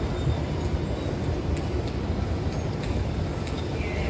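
Steady low rumble of a moving escalator under the rider, blended with the hum of a large terminal hall, with a few faint ticks.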